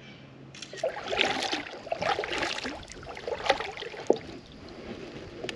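Water splashing and sloshing around a kayak in uneven bursts, with a sharp knock about four seconds in.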